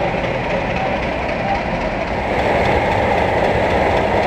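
Class 50 diesel locomotive with its English Electric 16CVST engine running as the train moves along the track: a steady mix of engine and rail noise that gets louder about two seconds in.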